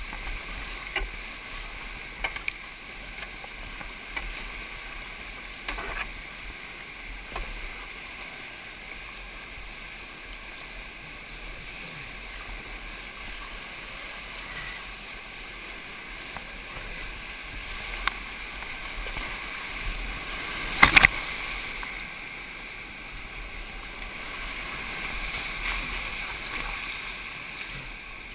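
Whitewater rapid rushing and splashing around a kayak, heard from a camera at water level as waves wash over the boat and lens. Several sharp knocks come through the water noise; the loudest and sharpest is about three quarters of the way through.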